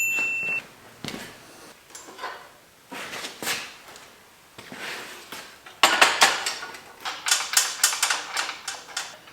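Metal parts and tools clinking and rattling as the steel miter saw stand is assembled and its bolts tightened with a wrench. The clicks are scattered at first, with a dense run of clatter about six seconds in. A brief high beep sounds at the very start.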